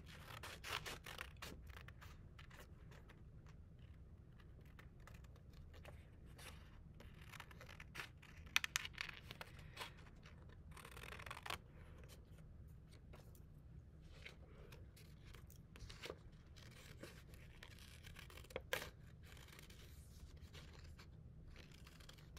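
Scissors snipping through a paper template: quiet, irregular cuts with rustles of the sheet as it is turned, a few louder snips about a third of the way in.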